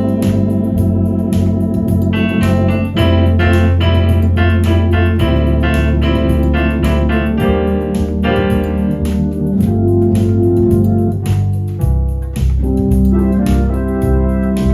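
Electronic organ playing a tune in held chords over a bass line, with an automatic rhythm accompaniment keeping a steady beat.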